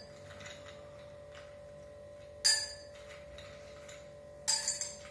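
Ice cubes dropped by hand into a tall glass, clinking against the glass and each other: one sharp clink about halfway through, then two or three quick clinks near the end. A faint steady hum runs underneath.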